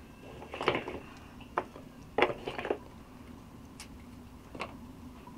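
Utensils clinking and scraping against cooking pots and dishes in a handful of short, separate knocks, the loudest about two seconds in.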